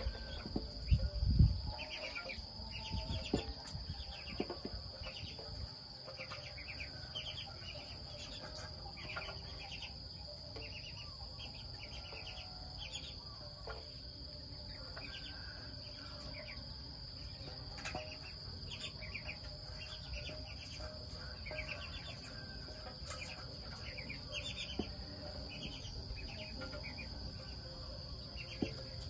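Insects in the undergrowth: a steady high drone, with short chirps repeating every second or so. A few low thumps about a second in.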